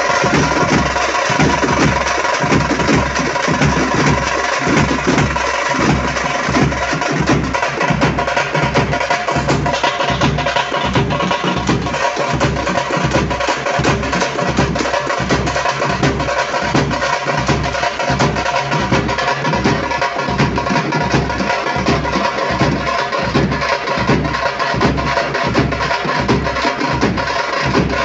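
Tamate frame drums beaten in a fast, steady, driving rhythm, with deep bass strokes.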